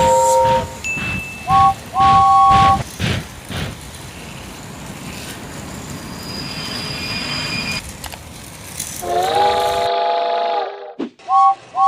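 Battery-powered Thomas Trackmaster toy train rattling and clicking along plastic track. Short two-note electronic whistle toots sound in the first few seconds and again near the end, and a longer chord-like train whistle sounds about nine seconds in.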